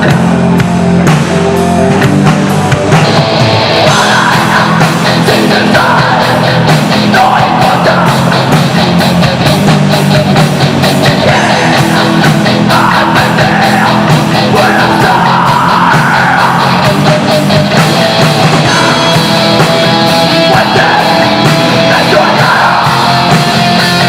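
Heavy metal band playing live, with distorted guitars, bass and drums; shouted vocals come in about four seconds in and run in phrases.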